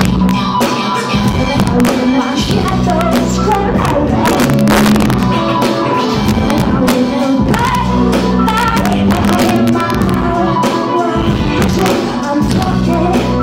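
Live band music with drums, a steady bass line and a singer's vocals, heard from the audience in a concert hall.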